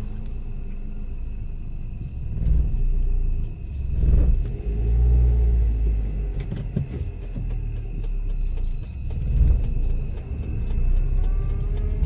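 A car driving along a road, heard from inside: low engine and road rumble that swells and falls several times.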